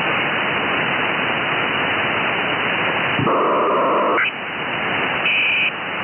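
Icom IC-705 transceiver in USB mode putting out steady receiver hiss as its dial is tuned across the QO-100 satellite downlink. About three seconds in, a loud steady tone cuts in for about a second and ends in a short rising whistle. A brief high tone sounds near the end as the tuning passes other signals.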